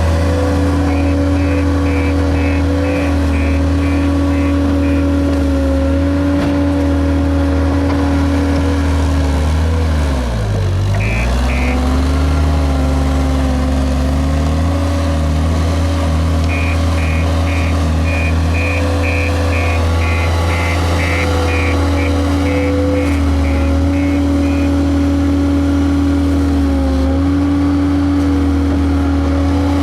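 JCB Robot skid steer loader's diesel engine running at high revs, its pitch dropping sharply under load about ten seconds in and then recovering. A reversing alarm beeps rapidly in two runs, early and again in the second half.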